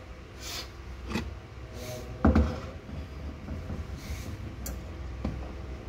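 Kitchen utensils being handled: a metal pan is set down on the counter with a loud ringing clank about two seconds in, among lighter clinks and knocks, over a steady low hum.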